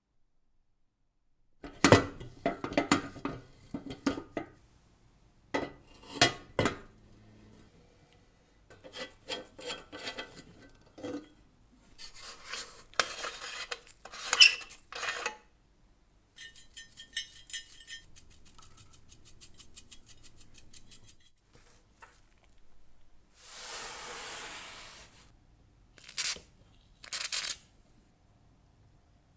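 Metal clanking and knocking as stove parts are handled and worked on, with a short run of quick, even ticks about halfway through and a couple of seconds of rasping or scraping later.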